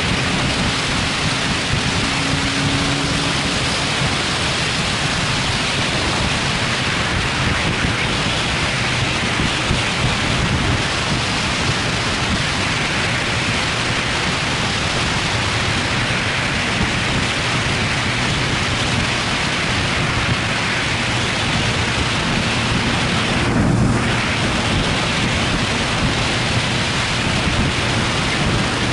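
Steady wind noise rushing over an action camera's microphone on a motorcycle at highway speed, with a low engine hum underneath that grows briefly louder late on.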